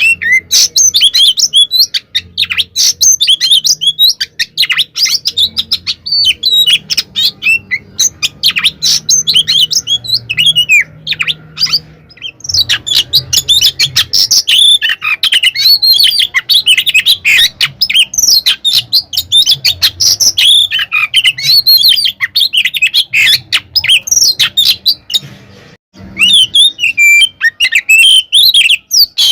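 Oriental magpie-robin (kacer) singing a loud, rapid, almost unbroken stream of varied chirps, whistles and scratchy notes: the agitated fighting song ('tarung konslet'). The song breaks off briefly about twelve seconds in and again near the end.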